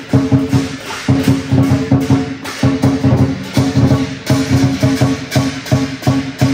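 Lion dance percussion: a large Chinese lion drum beaten in a fast, driving rhythm together with clashing hand cymbals, about three to four strikes a second.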